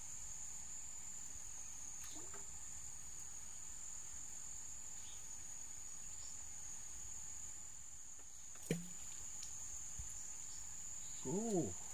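Insects trilling in one steady, unbroken high-pitched drone. There is a single sharp click about three-quarters of the way through and a short voice sound near the end.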